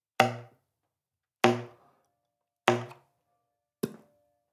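Slap tongue on a saxophone's low C: three sharp, percussive slaps about 1.2 seconds apart, each with a short low note that dies away quickly. Near the end comes a shorter, sharper slap without the low note.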